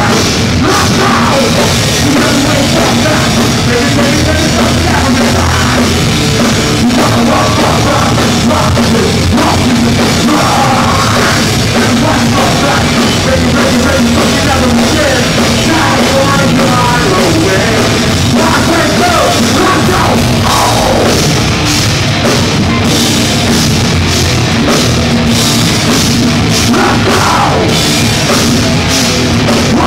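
A heavy rock band playing a song live at full volume, with a drum kit pounding under loud amplified instruments throughout.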